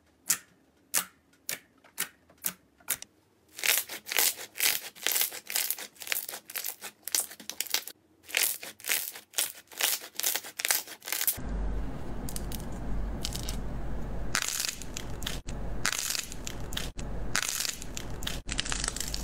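Hands working slime. First, fingers poke into glossy slime and make separate sharp pops, about two a second. From about three and a half seconds in, dense crackling pops follow as the slime is pushed and pulled. After a cut about eleven seconds in comes squishing and crackling over a steady low rumble and hiss.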